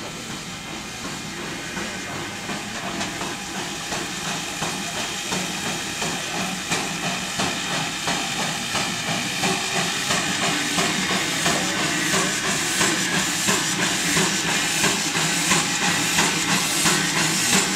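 Steam tank locomotive D 8 hissing steam as it moves slowly onto a turntable, growing louder throughout. A soft regular beat of about two a second gets stronger near the end.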